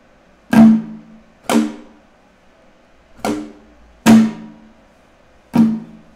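Acoustic guitar strummed by hand, one stroke at a time with pauses between, slowly demonstrating the 'balanço' strum pattern. There are five strums, each ringing and then fading; the first and the fourth are the loudest.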